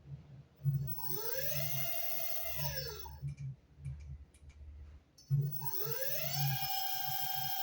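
Electric scooter's 5000 W motor whining as the throttle is twisted: the pitch rises, holds, then falls as the wheel coasts down, twice. A few light clicks come between the two runs.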